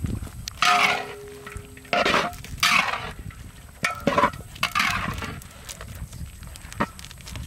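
Metal spatula scraping against a large iron wok in repeated strokes as chicken feet in curry paste are stirred.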